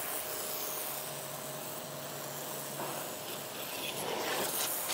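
Portable electric pressure washer spraying a jet of water onto a car's windshield and bonnet: a steady hiss of spray, with a faint steady hum underneath.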